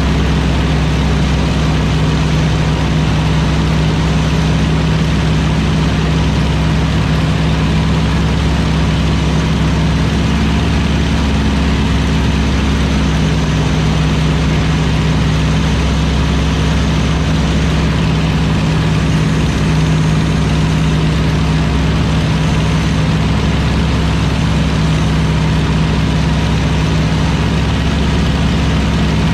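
Piston aircraft engine and propeller running steadily in cruise flight: a constant drone that holds its pitch throughout.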